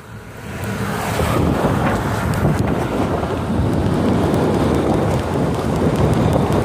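Wind buffeting the microphone of a moving car, with road rumble, swelling about a second in as the phone swings toward the side window.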